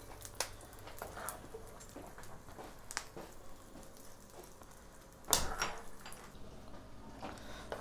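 A few light clicks and knocks, then a door being opened about five seconds in.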